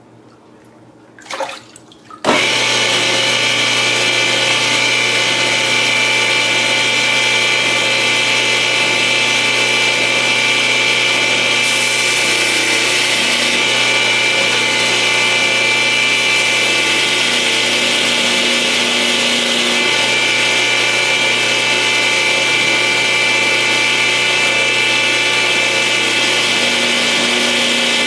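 Belt grinder with a wetted abrasive belt switched on about two seconds in, its motor and belt then running at a steady speed with a constant whine.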